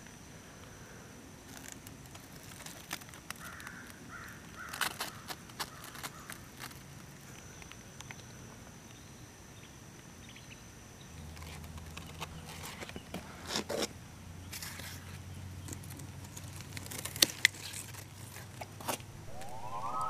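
Handling noise among zucchini plants: rustling leaves and stems with scattered light clicks, and two sharp clicks close together near the end. A faint steady high-pitched tone runs through the first half, and a low hum comes in about halfway.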